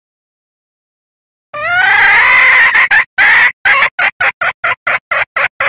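Red junglefowl hen calling, the lure call used to draw in cocks. About a second and a half in, one long call rises in pitch, then a fast run of short clucks follows, about four or five a second.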